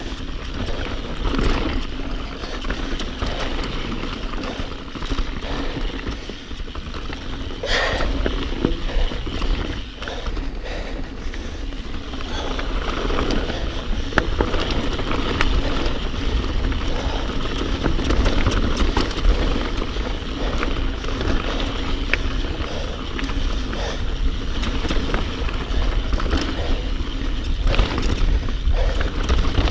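Mountain bike riding fast down a dirt singletrack, heard from a rider-worn camera: tyres rolling over dirt and stones with a constant low rumble, and the bike rattling and knocking over bumps.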